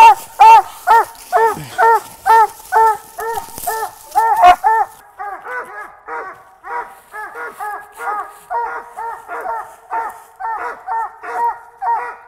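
A treed squirrel dog barking steadily at the tree, about two to three short barks a second. The barks are loud for the first few seconds, then carry on much fainter.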